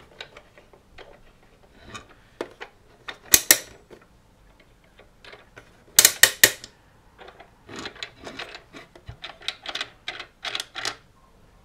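Plastic clock-kit gears and parts being handled and fitted together: a series of sharp plastic clicks and snaps. The loudest are a pair about three seconds in and a quick cluster of four about halfway through, followed by a run of lighter, irregular clicks.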